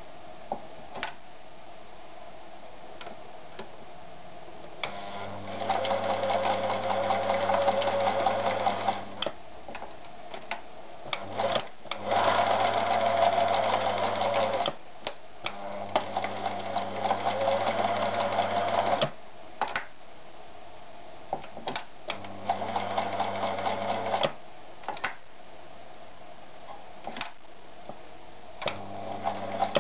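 Privileg TopStar 796 Super Automatic sewing machine running in several bursts of a few seconds each, with a steady motor hum while it sews. Short clicks fall in the pauses between runs.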